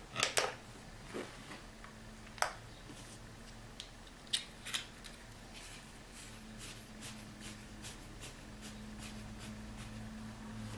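Small hard clicks and knocks of a lithium-ion battery being pulled from a plastic charger slot and a small headlamp being handled and its battery cap worked: a quick cluster right at the start, one click about two and a half seconds in, a pair around four and a half seconds, then softer fiddling. A faint steady low hum runs underneath.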